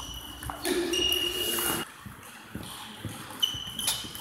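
Table tennis rally: the celluloid-type ball clicking sharply off the bats and table several times, with high squeaks of sports shoes on the hall floor as the players move.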